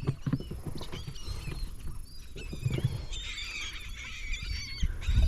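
A flock of seabirds calling over the water, many short overlapping cries that grow denser about three seconds in, over a low rumble of wind and boat noise.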